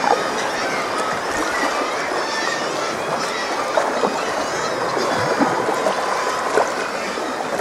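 Sea water sloshing and lapping around a sea kayak's hull, with small splashes from paddle strokes.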